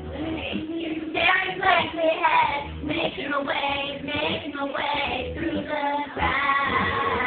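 Background music: a voice singing a song, with low instrumental notes underneath.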